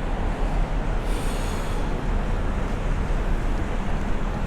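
Strong, gusty wind buffeting the microphone: a steady, rough rumble with a brief hiss about a second in.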